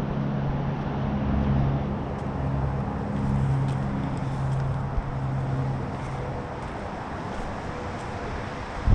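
A motor vehicle's engine hums steadily over a noisy outdoor background, then fades away about six seconds in.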